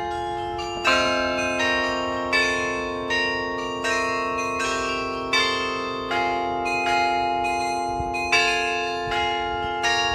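Tower bells of the New Ulm Glockenspiel playing a slow melody. One note is struck about every three-quarters of a second, and each keeps ringing under the next.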